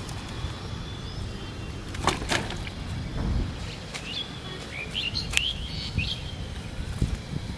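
Birds chirping: a cluster of short up-and-down calls from about four to six seconds in, over a steady low outdoor rumble, with a few sharp clicks.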